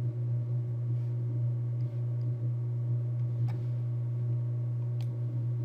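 A steady low hum with a couple of faint clicks about three and a half and five seconds in.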